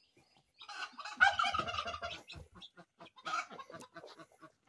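Poultry squawking in two harsh outbursts: a loud one about a second in lasting over a second, and a shorter one near three and a half seconds. Between them are short repeated clucks.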